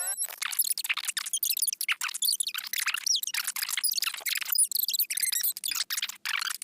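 A cartoon character's cough played back sped up, so it comes out as a rapid string of short, high-pitched squeaks and chirps.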